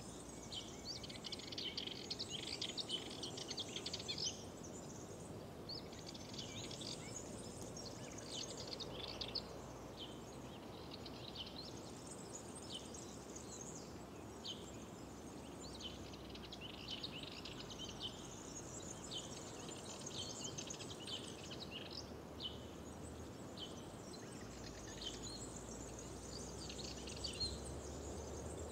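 Small birds singing, with many quick chirps and trills coming in bursts that pause every few seconds, over a steady low background hiss.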